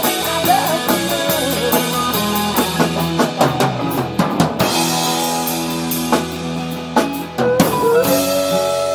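Live rock band playing: a drum kit with frequent snare and cymbal hits under strummed acoustic and electric guitars. Near the end a woman's voice holds a long note.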